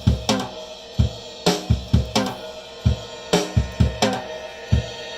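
A home-recorded track playing back: a drum kit with kick, snare and cymbals in a steady groove, and a bass guitar under it.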